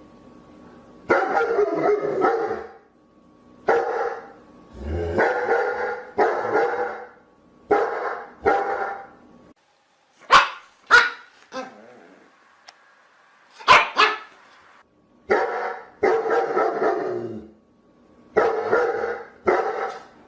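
Dogs barking in repeated runs of two or three barks, with a few shorter, sharper barks around the middle.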